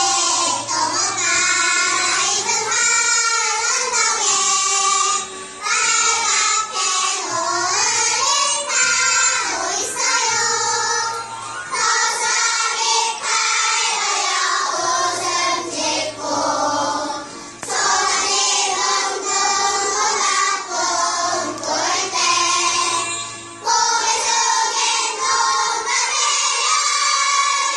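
A group of young children singing a song together, phrase after phrase with brief breaks between lines.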